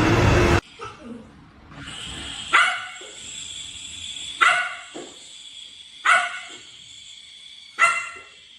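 A dog barking four times, single sharp barks spaced evenly about every second and a half to two seconds. A loud noisy sound cuts off abruptly just before the barks begin.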